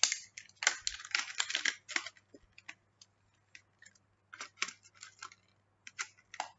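Clear plastic clamshell packaging being prised open and handled: a dense run of crackles and clicks for the first two seconds, then scattered clicks and two shorter clusters near the end.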